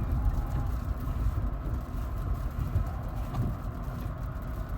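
Rivian R1T electric pickup driving on a snow-covered road: a steady low rumble of its tyres rolling over snow.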